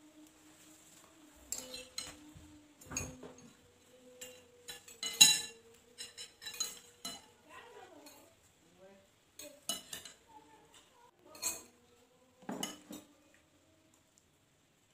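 Metal spoons clinking and scraping on ceramic plates and bowls as food is served and eaten, in scattered irregular clinks, the loudest about five seconds in.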